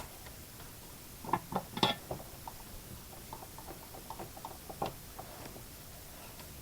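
A quick cluster of small clicks and knocks, loudest about two seconds in, then lighter scattered taps until about five seconds in, over a steady faint hiss: small tools and parts being handled on a workbench during soldering work.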